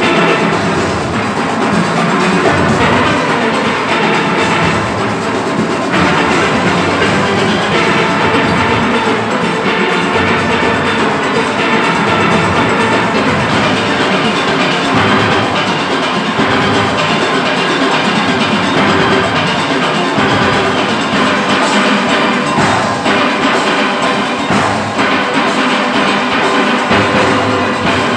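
A full steel orchestra playing live: many steelpans sounding together in a fast, dense arrangement over drums and percussion.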